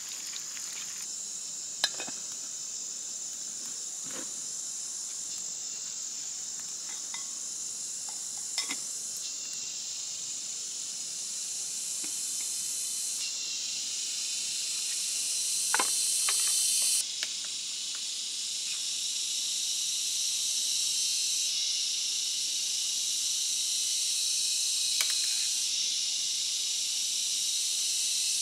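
Steady high-pitched drone of an insect chorus in forest, changing abruptly in level at several points. A few sharp clicks of chopsticks and cookware, the loudest about two seconds in.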